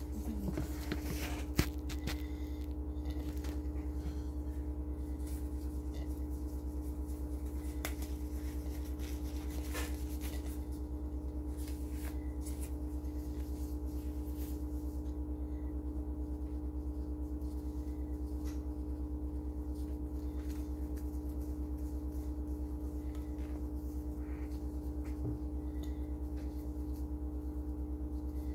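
A steady low machine hum with a constant mid-pitched tone. Over it, faint rustling and crinkling from gloved hands handling gauze and dressing materials while cleaning a surgical wound, and one sharp click about a second and a half in.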